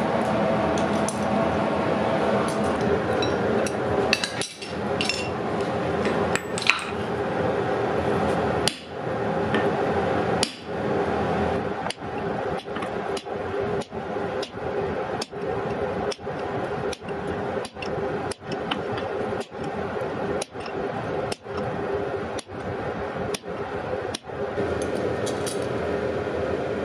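Hammer blows on a hand-held chisel cutting radial gill lines into a hot wrought iron disc on the anvil, forming the underside of a forged mushroom cap. A few scattered strikes come first, then steady blows about one every three-quarters of a second for about twelve seconds, stopping shortly before the end, over a steady hum.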